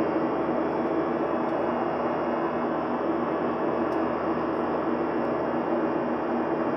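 Steady cabin drone of a Boeing 737-900, its CFM56-7B turbofans and the airflow heard from inside the cabin as a constant rushing noise with a low, steady hum.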